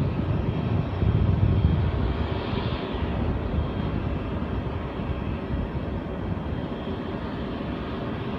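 Airbus A319's twin jet engines running at low thrust as the airliner taxis and turns onto the runway: a steady rumble with a hiss above it, which briefly brightens about two to three seconds in.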